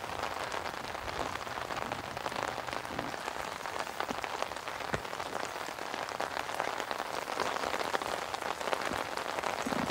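Steady rain falling on the surface of a lake, an even hiss made of many small drop hits.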